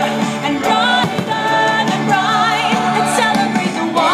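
The show's soundtrack song: sung vocals with wavering vibrato over steady held accompaniment, playing loudly.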